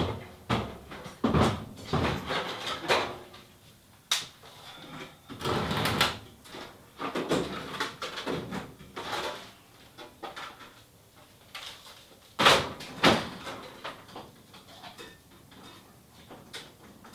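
Irregular rustling, scraping and clattering of parts and tools being handled, with sharp knocks about four seconds in and twice around twelve to thirteen seconds in.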